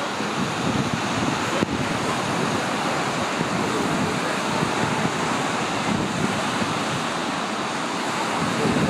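Lake surf washing ashore, with gusty wind buffeting the microphone.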